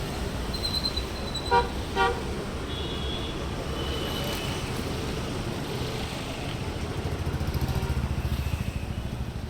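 Street traffic rumbling steadily, with two short vehicle horn toots about a second and a half and two seconds in. A vehicle engine grows louder near the end as it passes.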